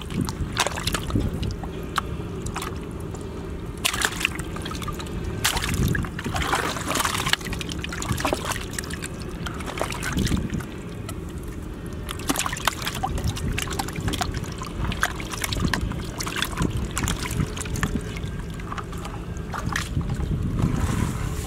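Muddy water sloshing and splashing in a plastic bucket as a hand moves among live snakehead fish, in irregular splashes.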